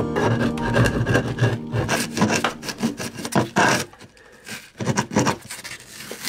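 Hand scraper with a wooden handle and metal shaft scraping and gouging at rotten, damp wood and foam core inside a boat's hull, in many quick strokes, with a short quieter pause about four seconds in.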